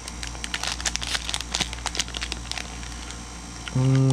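Plastic wrapper of a Topps Heritage Baseball trading card pack crinkling and tearing as gloved hands pull it open. Near the end a person's voice holds one steady note briefly, louder than the wrapper.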